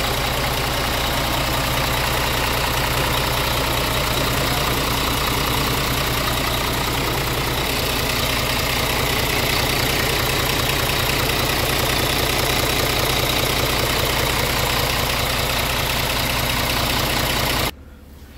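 2018 Scania R tractor unit's Euro 6 diesel engine idling steadily, heard up close in the open engine bay. It stops abruptly near the end.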